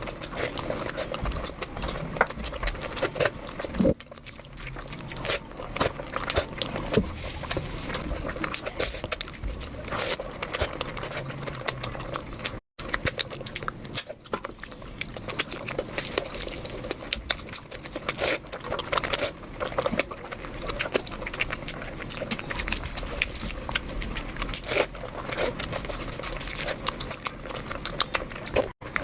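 Close-miked chewing and mouth noises of someone eating puri with mutton curry: wet squishing and smacking with many irregular clicks. The sound cuts out briefly twice, once near the middle and once near the end.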